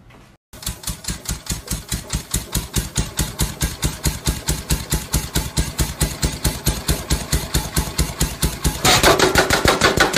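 Power hammer running, its ram striking in a rapid, even beat of about six blows a second, louder near the end.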